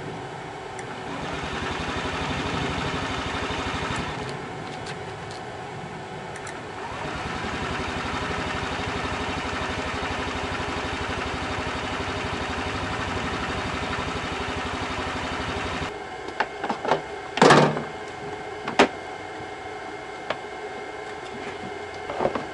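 Honda Ruckus 49cc scooter engine being cranked on its electric starter off a large jump battery, in two long runs: a short one, then one of about nine seconds that stops abruptly. The engine has a clogged carburettor and a dead battery. A few clicks follow, then one loud knock and another sharp knock a second or so later.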